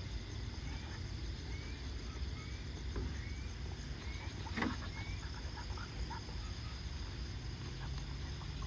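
Night-time outdoor ambience: a steady insect drone with short, rising chirping calls repeated about every half second to a second, over a low steady rumble. One faint click about halfway through.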